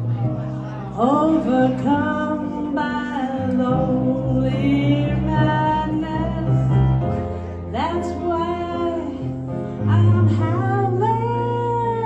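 Live female vocal over electric keyboard accompaniment with a steady bass line. The voice swoops up into long held notes three times, about a second in, near eight seconds and near ten seconds, with no words picked out.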